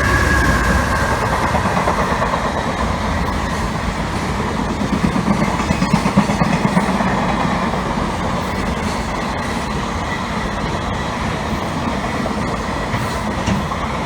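Freight train hauled by an EH500 electric locomotive rolling past close by, loudest right at the start. A steady rumble of wagons follows, with the wheels clattering rhythmically over rail joints about halfway through and again near the end.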